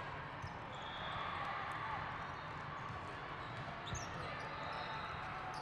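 Volleyball being hit and bounced on a sport-court floor, with scattered sneaker squeaks about four seconds in, over a steady din of crowd chatter echoing in a large hall.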